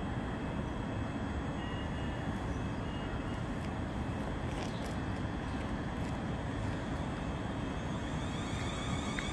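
A Class 450 Desiro third-rail electric multiple unit standing at the platform with a steady low rumble and hum, plus faint high electric tones. Near the end a rising electric whine sets in as the train starts to pull away.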